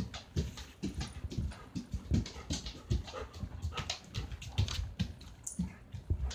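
German Shepherd panting close by, with irregular clicks and low thumps as it moves about.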